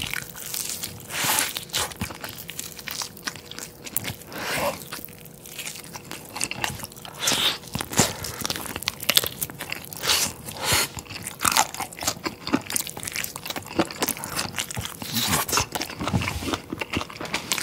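Close-miked eating: a person bites and chews food held in the hand, giving many short, sharp mouth clicks and smacks.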